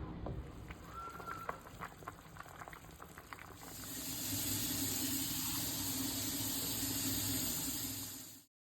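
Hamburger soup boiling in a Dutch oven, a steady bubbling hiss that grows louder about three and a half seconds in, after a few light clicks and taps. The sound cuts off suddenly near the end.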